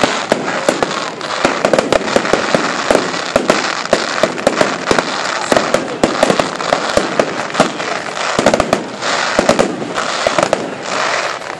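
Fireworks display: a dense, continuous barrage of rapid bangs and crackling, many reports a second.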